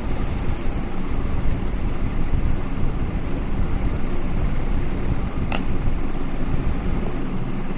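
Steady low rumbling air noise buffeting the microphone, with a single sharp click about five and a half seconds in.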